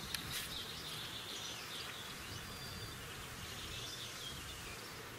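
Quiet summer outdoor ambience: insects buzzing, with scattered high chirping over a faint low rumble.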